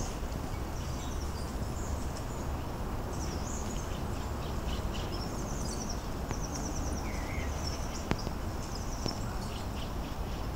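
Repeated high-pitched chirps and quick trills from small birds over a steady low rumble, like wind on the microphone.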